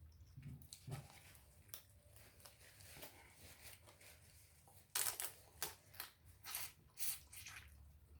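Seafood shells being cracked and peeled by hand: scattered small crackles and snaps, with a run of louder cracks about five to seven and a half seconds in.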